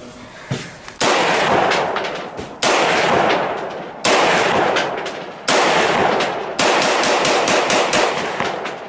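Five gunshots at a slow, even pace, about one every second and a half, each with a sharp start and a long echoing decay.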